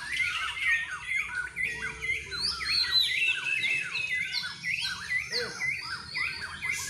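Several caged white-rumped shamas (murai batu) singing at once, a dense chorus of rapid, overlapping whistled phrases, many of them falling in pitch.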